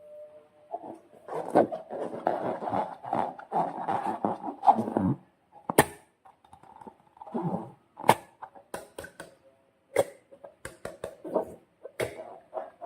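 Slime and a rubber balloon being worked by hand: a dense run of wet, crackling squelches for the first five seconds, then scattered sharp clicks and short rubbery squeaks.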